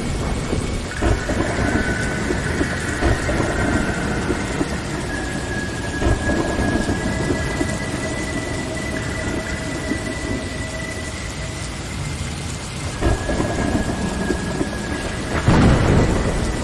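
Low rumbling noise like thunder and rain, with thin held high tones that come and go over it, and a loud rumbling swell about fifteen seconds in.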